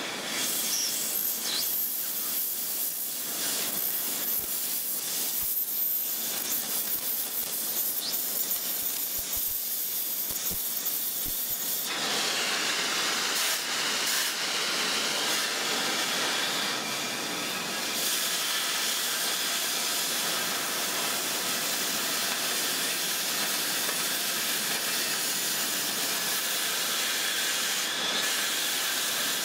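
Oxy-fuel cutting torch with an imitation cutting tip hissing steadily while held on a steel plate, its tip ground into the molten metal. About twelve seconds in the hiss grows louder and fuller, then holds steady.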